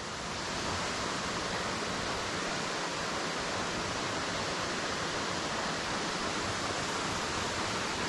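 Waterfall pouring into a creek pool: a steady, even rush of falling water.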